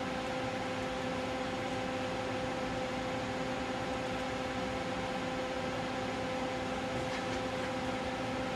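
Steady hum and hiss of running bench electronic test equipment, with a few faint clicks about seven seconds in.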